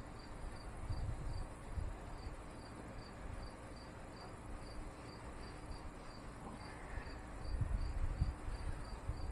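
A cricket chirping steadily, about two and a half short high chirps a second, over irregular low rumbles that swell near the end.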